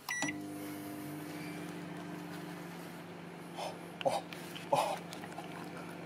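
Microwave oven keypad beeps once as it is started, then the oven runs with a steady electrical hum, a light bulb inside heating in the cavity. A few short, sharp noises stand out about three and a half to five seconds in.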